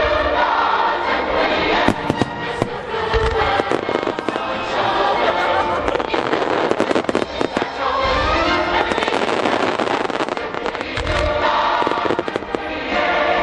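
Fireworks bursting and crackling in rapid, dense succession over music with a choir played for a music-synchronised display. Heavier low booms land about three, eight and eleven seconds in.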